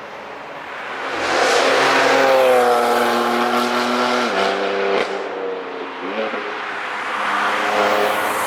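Car engine passing at speed on a race track. It swells to its loudest a couple of seconds in, then its pitch drops sharply about four seconds in and again near six seconds as it goes by. Another engine rises near the end.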